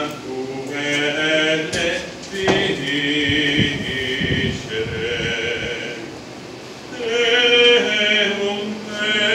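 Male choir singing a cappella in held, chant-like phrases, with short breaks between phrases.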